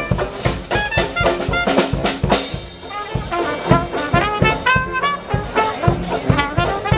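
Dixieland marching band playing: trumpet and trombone lead with saxophones over a steady bass-drum and snare beat, with a cymbal-like crash about two and a half seconds in.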